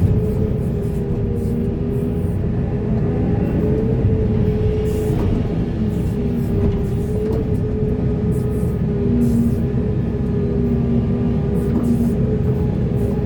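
Heavy diesel earthmoving machine running steadily at working revs: a continuous low rumble with steady tones that waver slightly in pitch.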